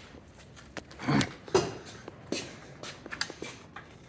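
A tool being put away in a tool chest drawer: a few separate knocks and clicks of the drawer and tool, the loudest about a second in.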